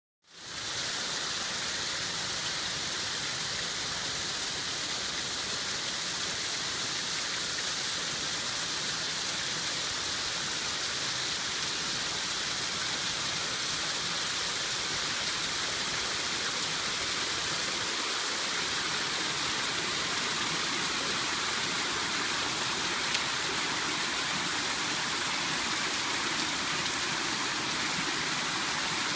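Water gushing and splashing steadily through leaks in a wooden canal lock gate, jets falling into the pool of the lock chamber below.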